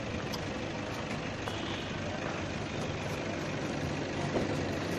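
A vehicle engine running amid steady outdoor noise.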